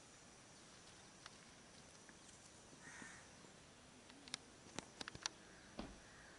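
Near silence with faint outdoor hiss. A soft bird call comes about three seconds in, and a quick cluster of sharp clicks follows a second or two later.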